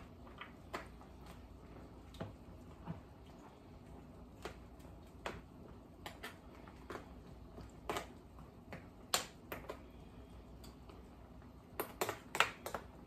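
Metal spoon clinking and scraping against a stainless steel cooking pot as a pot of crabs in coconut milk is stirred: scattered light clicks, with a quick run of them near the end.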